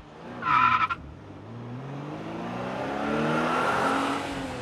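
Car sound effect: a short, loud tyre squeal about half a second in, then a car engine revving, its pitch rising slowly as it swells and then easing off near the end.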